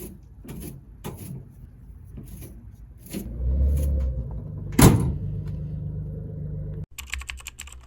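Scattered clicks and knocks, then a car engine running with a steady low hum. A loud door slam comes about five seconds in, and the sound cuts off suddenly near the end.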